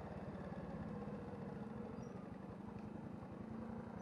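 Honda motor scooter's engine running at low riding speed: a faint, steady low hum with a rapid even pulse.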